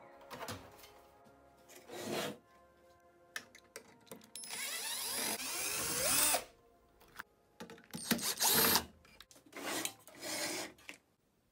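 Electric screwdriver running in bursts as it drives screws out of a stereo's chassis and circuit boards. The longest run lasts about two seconds in the middle, its pitch wavering as the screw turns, and shorter bursts follow later.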